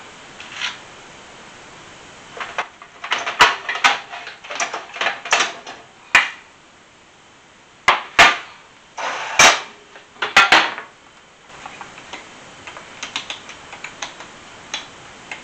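Kitchen clatter: irregular sharp knocks and clicks of cookware and utensils, some in quick pairs, over a steady hiss that drops away about three-quarters of the way through.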